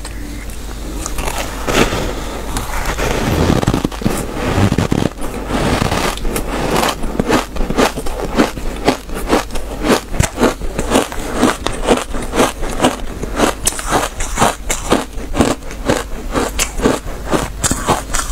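Compacted purple shaved ice being eaten close up: fingers first scrape and break chunks out of the block, then from about six seconds the ice is chewed in quick, squeaky crunches, about three or four a second, like footsteps on packed snow.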